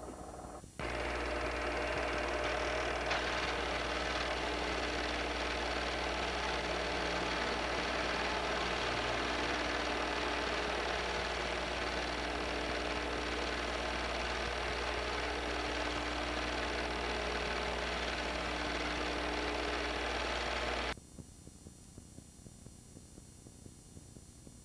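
Super 8 film projector running steadily, a mechanical whirr over a low hum, which stops abruptly near the end and leaves only faint hiss.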